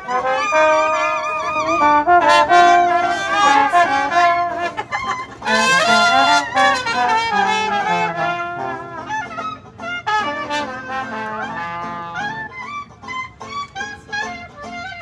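Brass band playing a jazz tune, with several horns carrying the melody together.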